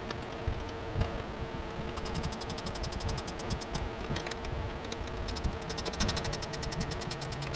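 A ratcheting wrench clicking in quick runs of about ten clicks a second while bolts are tightened, twice.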